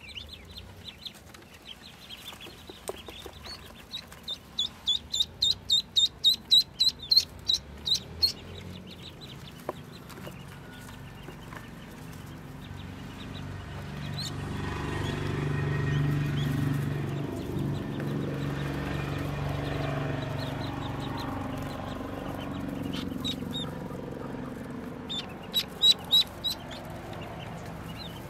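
Ducklings peeping: a quick run of loud, high peeps from about four to eight seconds in, and another short burst near the end. A lower, longer sound fills the middle stretch.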